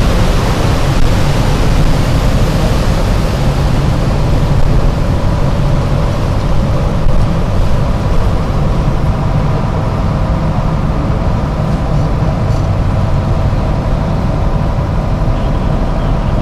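Tour boat's engine running steadily underway: a loud, steady low drone, with a rushing hiss above it that eases a few seconds in.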